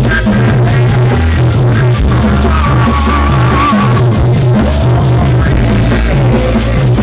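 Loud music with heavy, pulsing bass notes and a wavering melody line in the middle, played loud enough to shake the recording microphone.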